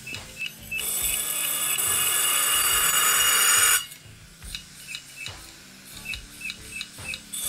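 Opened-up, broken hard drive running with its cover off, its head arm ticking about three times a second. About a second in, a loud scraping hiss lasts about three seconds: a screwdriver tip rubbing on the spinning platter.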